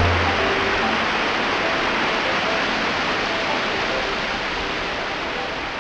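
Skradinski buk waterfall cascade on the Krka river: a steady, dense rush of falling water that slowly fades toward the end, with faint music beneath.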